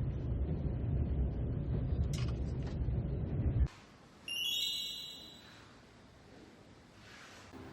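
Low road rumble of a car in motion, cutting off suddenly about three and a half seconds in; a moment later a short, high electronic chime sounds, then only faint background remains.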